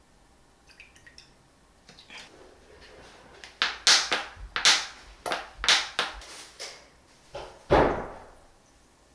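A run of sharp clicks and taps from condiment bottles and containers being handled over a glass mixing bowl, about eight of them starting about three and a half seconds in. One heavier knock follows near the end.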